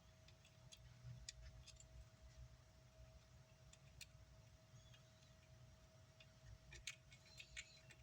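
Near silence: room tone with a faint steady hum and a few light, scattered clicks, a small cluster of them near the end.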